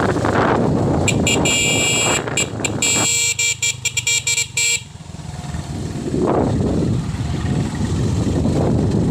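A motorcycle runs along with wind noise on the microphone. About a second in, a vehicle horn sounds in a rapid series of short toots for almost four seconds. The engine and wind noise then return, swelling a couple of times.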